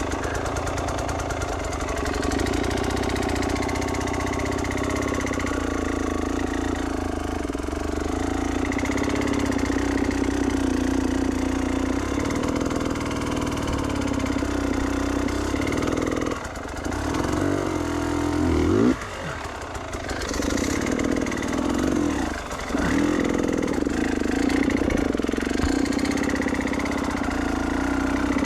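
Enduro dirt bike engine running under load on a trail ride, its revs rising and falling with the throttle; the swings get sharper in the second half, with a brief drop in revs about two-thirds of the way through.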